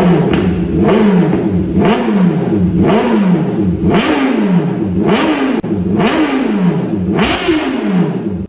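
BMW S1000RR inline-four sportbike engine with an aftermarket exhaust, its throttle blipped over and over, about once a second: each rev rises sharply in pitch and falls back toward idle.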